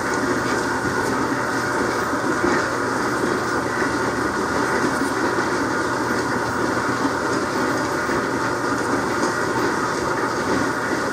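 A vibratory rock tumbler running: a steady mechanical rattle and hum that goes on without a break.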